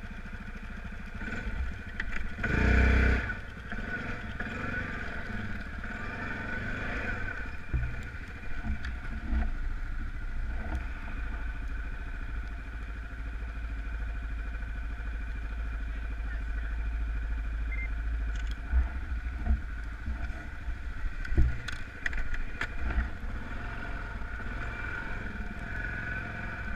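Off-road vehicle engine running steadily, louder for about a second near the start, with a few brief louder spikes later on.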